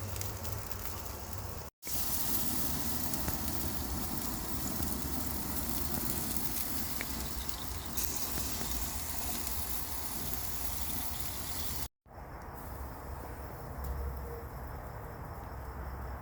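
Food sizzling steadily as it cooks, a continuous hiss. The sound cuts out for an instant twice where clips are joined, and after the second cut the sizzle is duller.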